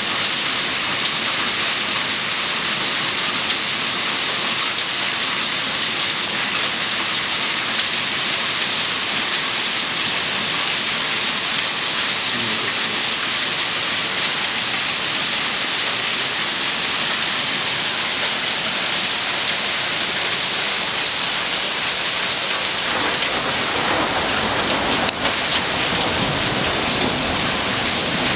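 Heavy rain and hail pouring steadily onto stone paving and walls, a dense even hiss. Near the end a low rumble of thunder rolls in under it.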